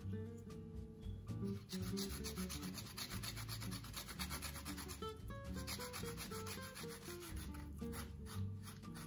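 Lemon peel being zested on a fine stainless-steel rasp grater: quick, repeated rasping strokes starting about two seconds in, with a brief pause midway, over soft background music.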